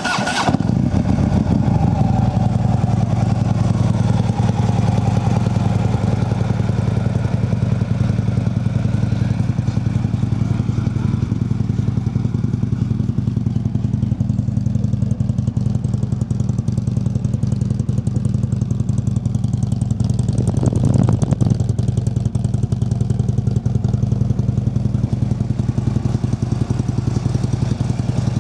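2015 Harley-Davidson CVO Ultra Limited's Twin Cam 110 V-twin starting up and idling steadily through its stock exhaust, with a brief blip of the throttle about three quarters of the way through.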